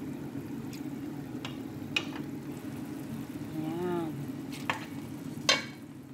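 Wooden spatula stirring bulgur wheat in an aluminium pot, with several sharp knocks against the pot, the loudest about five and a half seconds in, over a steady low hum. A brief voiced hum is heard around the middle.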